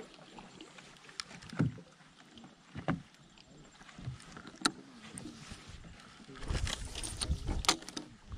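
A few soft knocks and splashes spaced a second or more apart, then about two seconds of close rumbling and clicking near the end as the spinning rod and reel are handled.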